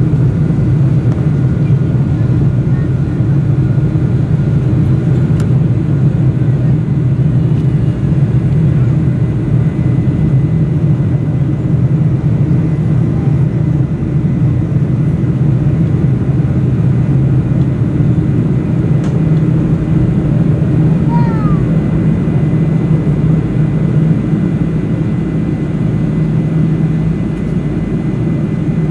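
Steady deep roar of a Boeing 747-400's Pratt & Whitney PW4000 turbofans and the rushing air, heard inside the cabin over the wing as the airliner climbs out after take-off, with a faint high whine above it.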